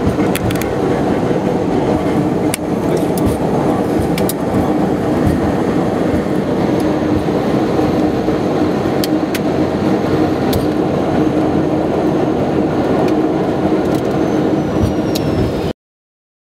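Steady cockpit noise of an airliner rolling along the runway just after touchdown: engine and airframe rumble with a low hum and scattered light clicks and rattles. It cuts off suddenly near the end.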